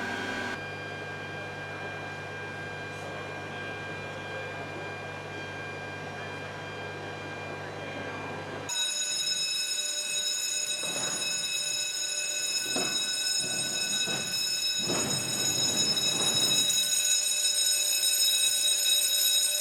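Steady mechanical hum with several fixed whining tones. About nine seconds in it changes abruptly to higher whines, with swells of rushing noise that come and go every second or two.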